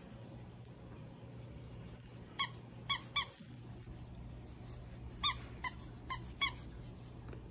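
French bulldog puppy whimpering in short, high squeaks: three quick ones about two and a half seconds in, then four more a few seconds later, over a steady low hum.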